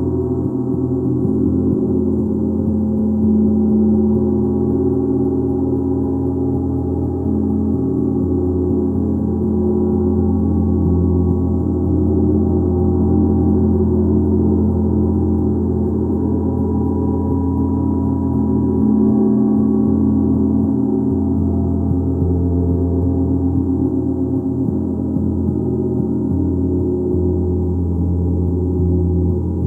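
Gong played continuously, a steady, layered wash of many overlapping low tones with no single strike standing out.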